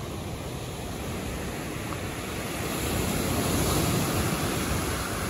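Ocean surf breaking and washing up a sandy beach, swelling about halfway through as a wave breaks close by, then easing.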